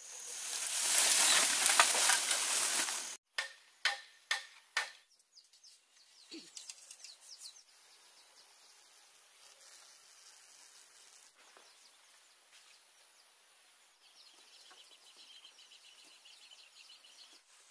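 A loud rushing noise for about three seconds that cuts off abruptly, then four sharp knocks about half a second apart, followed by faint outdoor ambience with light bird chirps.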